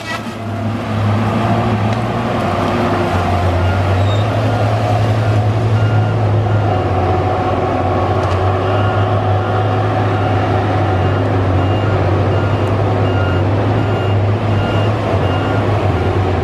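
Tigercat LX830D tracked feller buncher's diesel engine running steadily under load. From about a third of the way in, its reverse alarm beeps about twice a second as the machine backs up.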